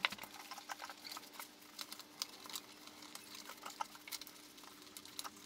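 Faint, irregular rustling and small clicks of cloth car-seat upholstery being pushed and tucked by hand into place around the seat frame.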